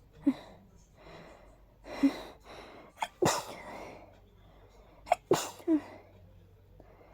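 A person sneezing during a hayfever fit: a couple of short breath catches, then two sneezes, one about three seconds in and the next about two seconds later.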